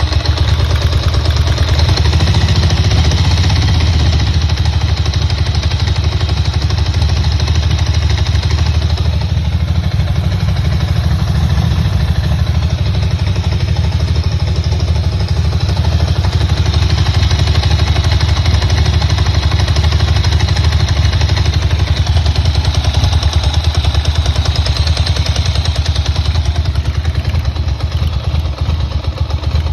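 Ducati 900SS air-cooled 90-degree V-twin engine running steadily, with no big revs. Its owner questions whether it is making an abnormal noise.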